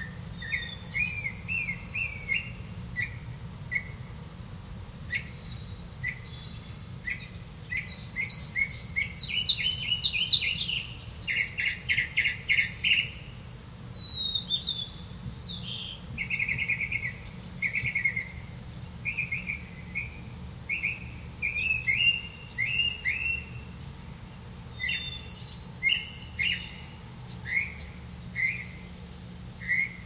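Black bulbul nestlings begging at the nest: many short, high chirps, some in quick rattling series, the loudest about eight to eleven seconds in.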